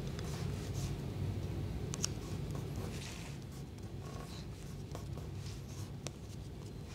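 Paper card being folded and pressed together by hand as glued flaps are stuck down: faint rustling with two small sharp clicks, over a steady low hum.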